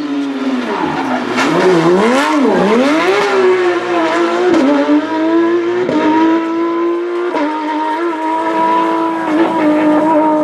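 Classic rally car engine working through a tight corner. The revs dip and rise sharply twice with throttle blips, then it pulls away with the revs held high and slowly climbing. The sound cuts off suddenly at the end.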